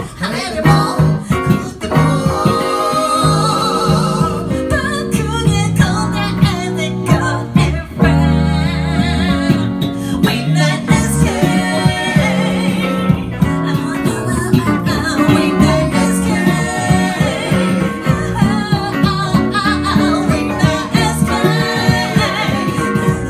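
A small band playing a song live: women singing over strummed acoustic guitar and electric guitar.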